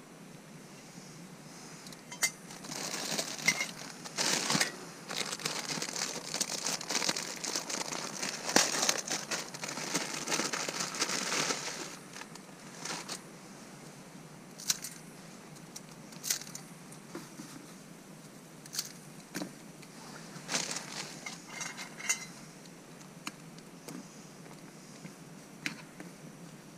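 A plastic food packet crinkling and tearing as it is opened and handled, with the dry food broken up and crumbled into a metal cup, for about ten seconds. After that come scattered light clicks and taps.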